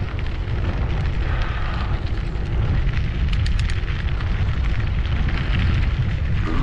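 Wind buffeting the bike-mounted camera's microphone, with bicycle tyres rolling over a gravel road: a steady low rumble and noise, with a few light ticks about three and a half seconds in.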